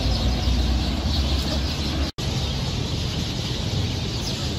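Steady outdoor background noise: a low rumble under a hiss, broken by a split-second gap about two seconds in.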